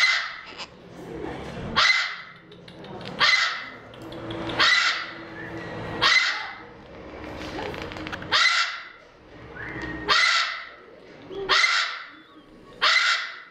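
Amazon parrot calling: about nine short, loud, harsh calls, repeated every second and a half or so.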